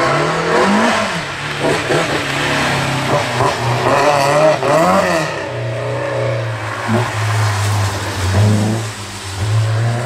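BMW E30 rally car's engine revving hard under acceleration, its pitch rising and falling through throttle lifts and gear changes in the first half. From about halfway the engine holds a steadier note.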